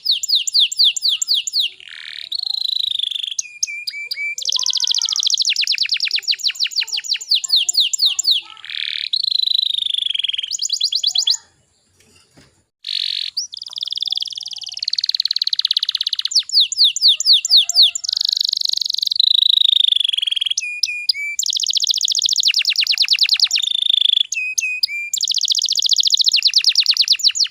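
Domestic canary singing a long song of rapid trills and rolls, fast repeated high notes with rising and falling sweeps, breaking off for about a second near the middle before going on.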